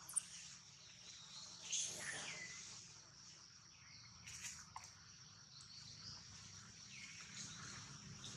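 Faint outdoor ambience: a steady high-pitched insect drone, with a few short high chirps and a click on top.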